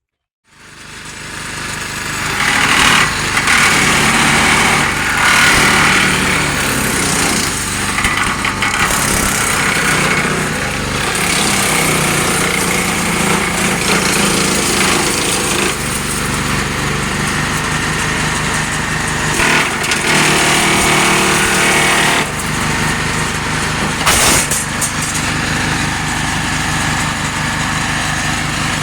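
Wheel Horse C160 garden tractor's single-cylinder Kohler engine running at speed, belt-driving a front-mounted MacKissic Mighty Mac chipper-shredder on a test run. The noise builds over the first couple of seconds, then holds steady with uneven surges.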